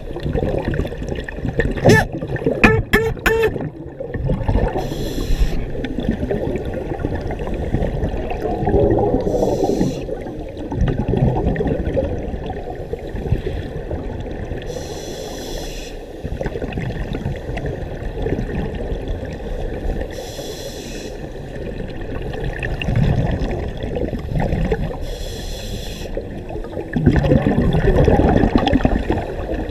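Scuba diver breathing through a regulator underwater: a short inhalation hiss about every five seconds, with exhaled bubbles burbling loudly between breaths. A quick cluster of sharp clicks comes about two to three seconds in.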